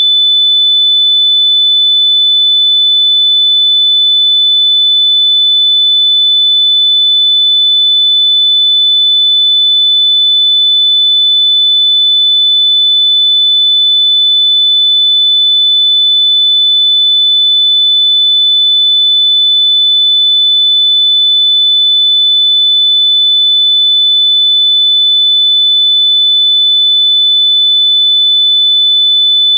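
A single steady, very high-pitched electronic sine tone, held unchanged at one pitch and played loud.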